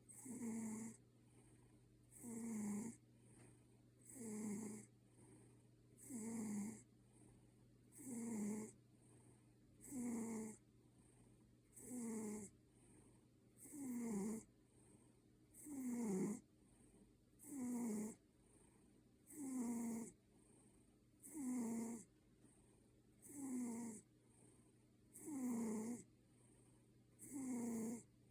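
Maine Coon cat snoring, a human-like snore on each breath that falls slightly in pitch and repeats evenly about every two seconds.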